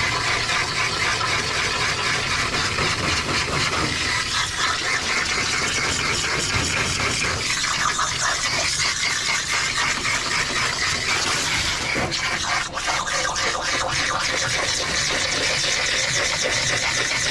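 Handheld bathing hose spraying conditioner water steadily into a wet dog's thick coat, the spray driving out loosened undercoat. The spray dips briefly about two-thirds of the way through.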